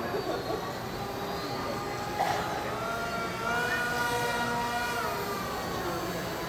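Small electric motor of an indoor RC model flyer whining over a steady rush. The whine climbs in pitch about three and a half seconds in, holds, and falls away about a second and a half later as the throttle changes. A short knock comes about two seconds in.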